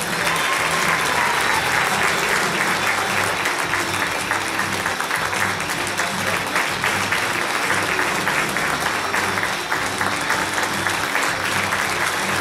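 Audience applauding, with instrumental music carrying on faintly underneath.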